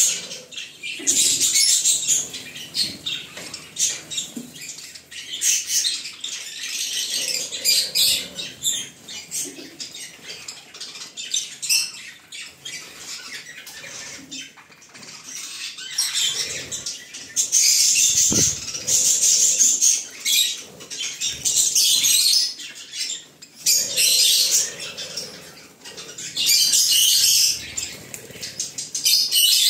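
Flock of budgerigars chattering, scratchy high-pitched warbles and chirps coming in loud bursts every few seconds.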